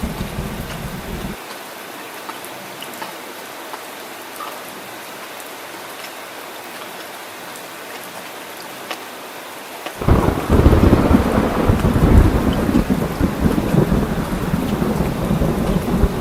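Heavy rain falling steadily. A rumble of thunder dies away in the first second or so, and about ten seconds in a loud roll of thunder breaks in and keeps rumbling.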